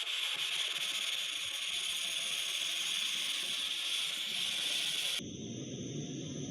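MSR Whisperlite liquid-fuel stove running on Coleman fuel, hissing steadily as its control valve is opened after priming. About five seconds in the sound changes abruptly from the high hiss to a lower, rougher rushing noise from the burner.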